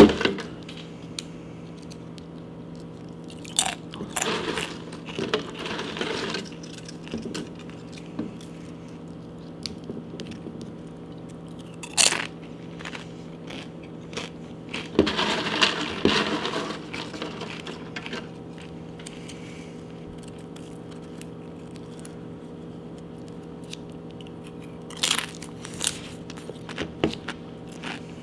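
Tortilla chips being bitten and chewed in several separate bursts of crunching, with pauses between, over a steady low hum.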